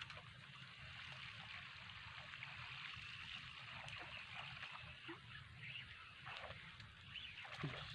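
Faint outdoor water ambience: a steady high hiss with light gurgling and a few soft ticks.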